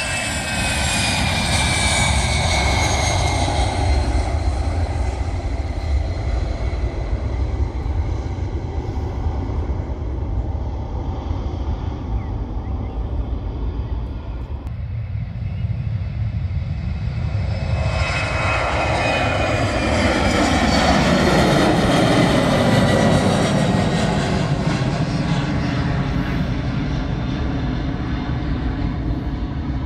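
easyJet Airbus A320-family twin-jet airliner at takeoff thrust as it lifts off: a continuous jet roar with a whine that slides down in pitch. From about 18 seconds in the roar swells to its loudest as a climbing jet passes overhead, its tones sweeping downward, then eases off slowly.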